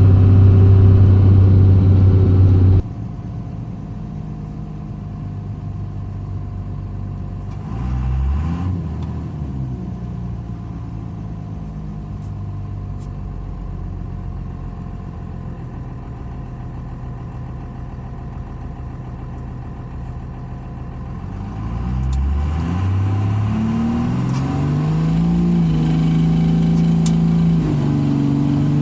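12-valve Cummins 5.9 L inline-six turbo diesel running. It is loud at first, drops abruptly about three seconds in, and revs briefly around eight seconds. From about 22 seconds it rises in pitch under acceleration, then holds a steady, louder drone.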